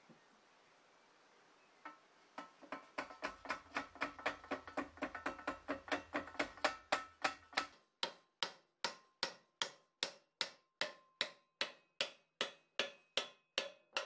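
Steady series of hammer blows on a steel coal shovel, about two to three a second, each with a short metallic ring, as the old wooden handle is knocked out of its socket. The blows start about two seconds in and grow louder over the next few seconds.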